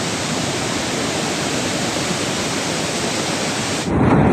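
Steady rushing roar of a volcanic lahar flood, a torrent of mud, water and rock pouring down a riverbed. Near the end it cuts abruptly to a louder, deeper rush.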